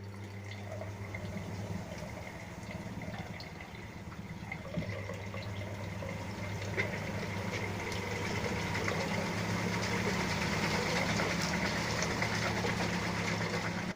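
LG T7270TDDL washing machine on a spin-only cycle with wet clothes: a steady motor hum with water rushing and draining, growing louder as the drum speeds up over the first ten seconds or so, then holding steady.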